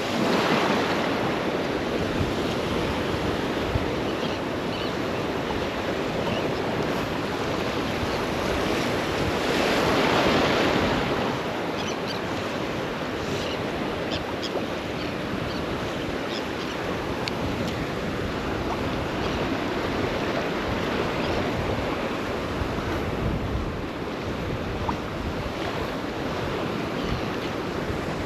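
Surf breaking and washing, with wind buffeting the microphone; a wave swells louder about ten seconds in.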